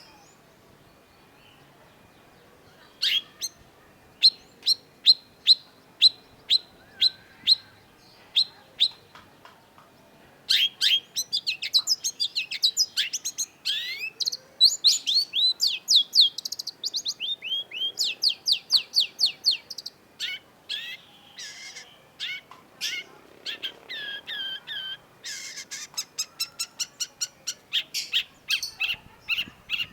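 Long-tailed shrike singing. It starts with a run of sharp repeated notes about two a second, then about ten seconds in breaks into a fast, dense chatter of sweeping notes that carries on in bursts.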